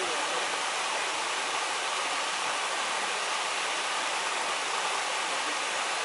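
Small waterfall and stream rapids rushing steadily.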